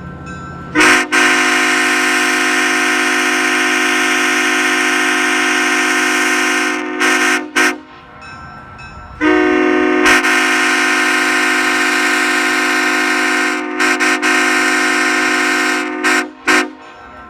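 Nathan Airchime K5HL five-chime train horn (bells 1L, 1, 2, 3, 4) sounding its deep chord in two long blasts, starting about a second in. Each blast lasts six to seven seconds and ends in a couple of short stuttered toots.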